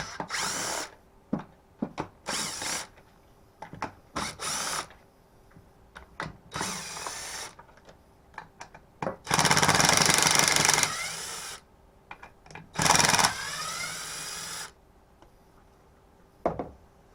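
Cordless drill-driver running in about six short bursts, each spinning up, backing out the T27 Torx screws of a Stihl FS36 trimmer's carburetor and housing. The longest run comes about halfway through, with small clicks of the screws and bit between runs.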